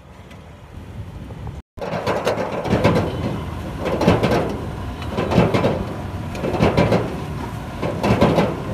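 Metal wok ladle scraping and clanking against a wok as greens are stir-fried over a gas burner, starting about two seconds in: five strong strokes about every second and a quarter, over a steady hiss.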